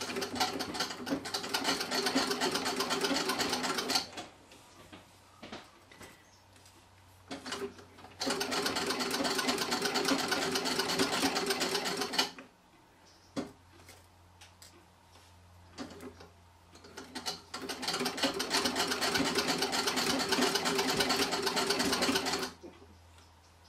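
1912 Singer 27 treadle sewing machine stitching a straight seam in three runs of a few seconds each: a fast, even clatter of the needle bar and mechanism. It stops twice for a few seconds, with only small clicks, as pins are pulled from the fabric before the needle reaches them.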